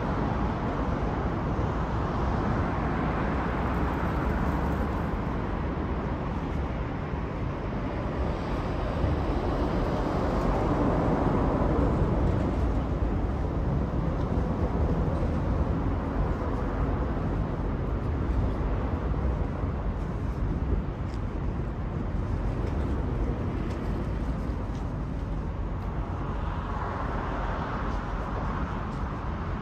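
Outdoor city ambience of steady distant road traffic, a continuous rumble that swells louder twice, about ten seconds in and again near the end.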